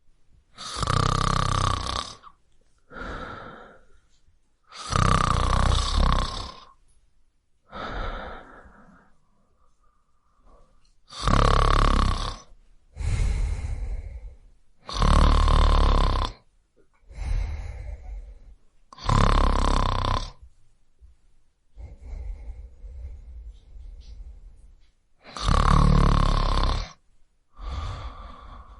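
A man snoring: six loud snores, roughly four seconds apart, each followed by a quieter breath. There is a longer, quieter stretch of breathing after the fifth snore.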